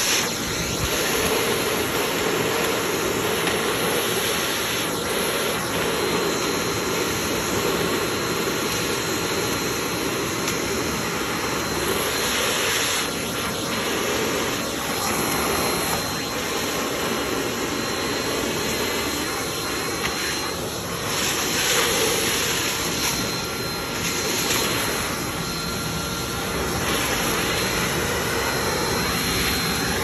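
Vacuum cleaner running steadily while its hose nozzle sucks spotted lanternflies off tree bark, a constant motor whine and rush of air that grows brighter and hissier a couple of times as the nozzle moves over the trunk.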